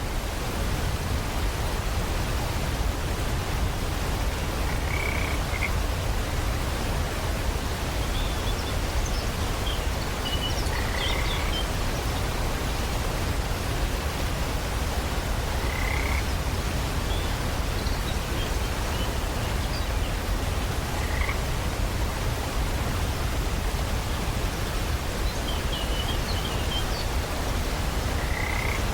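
Steady rain hiss with short bird chirps at scattered moments, around five or six brief clusters.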